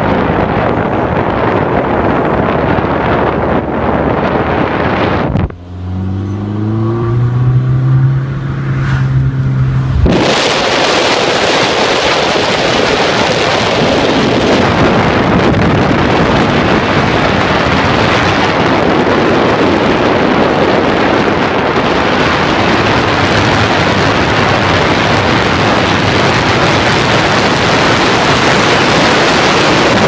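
Car driving, with loud rushing wind and road noise. About five seconds in the rush drops away for a few seconds and a low engine hum rises and then holds steady, before the rushing noise comes back.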